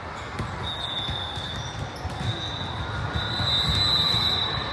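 Indoor gym ambience at a volleyball tournament: scattered thuds of balls and feet on the courts over a low crowd hubbub, with a thin high squeal that runs, with short breaks, from about a second in.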